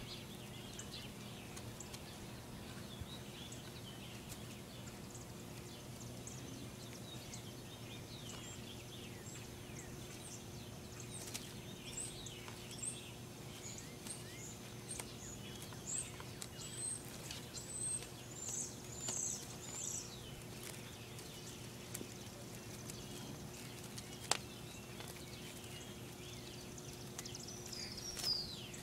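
Birds chirping in the background: runs of short, high chirps, thickest in the middle stretch and again near the end, over a steady low hum. A single sharp click stands out about two-thirds of the way through.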